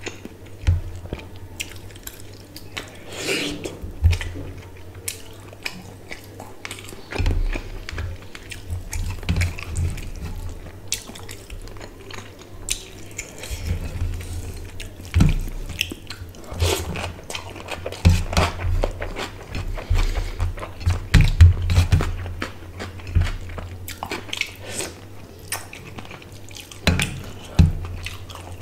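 Close-miked eating by hand: fingers squishing and mixing rice with fish curry on a steel plate, with wet chewing and lip smacks in irregular clicks.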